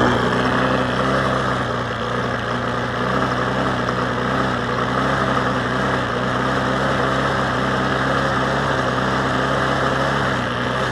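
Bolens 21-inch push mower's small four-stroke engine running at a steady, fairly high speed with slight rises and falls. It is still surging, which turns out to come from a crack in the air intake.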